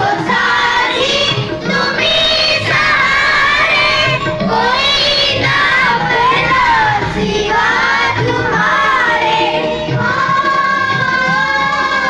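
A group of children singing a prayer song together.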